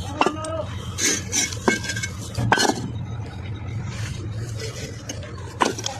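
Fired clay bricks knocking and clinking against one another as they are handled, about five sharp clinks with short ringing, over a steady low hum.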